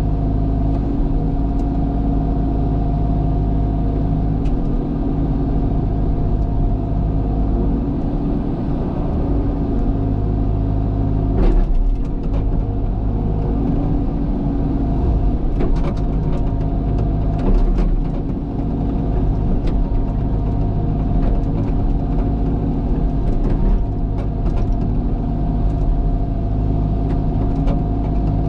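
Cat excavator's diesel engine running steadily under work, with a brief surge about twelve seconds in and scattered sharp clicks and knocks through the second half.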